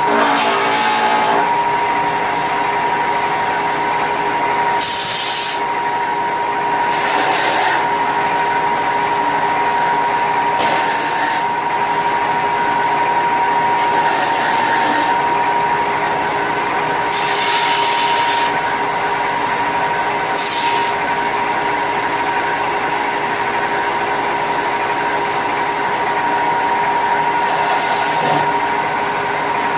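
Small handheld electric power tool running with a steady whine while working an aluminium piece, with short, harsh, hissy bursts every few seconds as it bears down on the metal.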